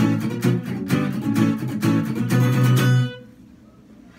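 Acoustic guitar strummed in chords, ending on a held chord that is cut off suddenly about three seconds in; faint room tone follows.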